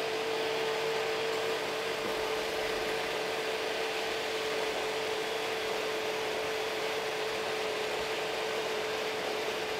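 Steady machine hum: a constant mid-pitched whine over an even hiss, with no distinct knife strokes standing out.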